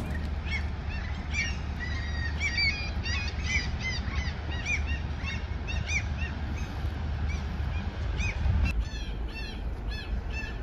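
Birds calling: many short, repeated calls, several a second, that grow denser and stronger near the end. A steady low rumble runs underneath.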